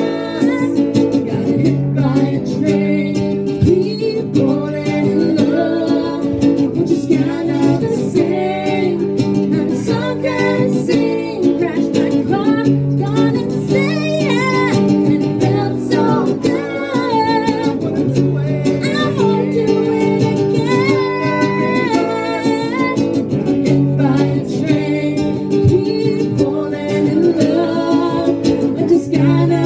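Live acoustic duo: a strummed acoustic guitar accompanying a woman singing into a microphone.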